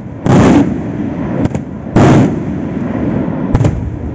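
Aerial firework shells (Maltese festa murtali) bursting overhead: two big booms a little under two seconds apart, with two smaller sharp cracks between and after them, and a rolling echo that carries on between the blasts.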